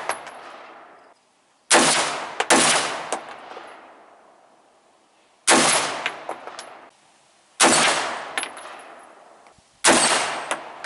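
Five single gunshots from a firearm at a shooting range, each dying away over a second or so. The first two come less than a second apart, and the rest come every two seconds or so, with faint ticks after some shots.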